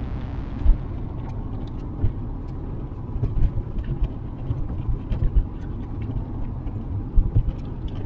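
Car cabin noise while driving over a rough, potholed, wet road: a steady low engine and tyre rumble with repeated knocks and thuds as the car hits bumps, and light ticking of rain on the windscreen.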